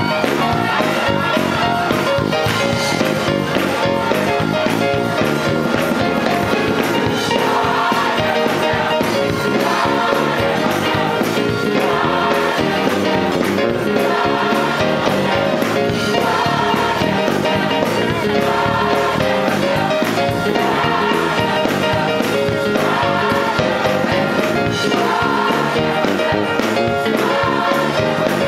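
Gospel choir singing with instrumental accompaniment and a steady beat; the voices come in more fully about eight seconds in.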